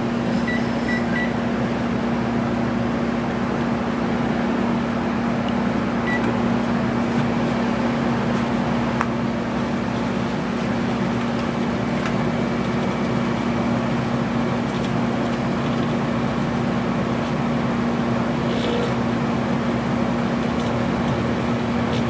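LG microwave oven started with three short keypad beeps, then running with a steady hum. One more beep about six seconds in, and a few faint crackles later on from laptop electronics arcing inside it.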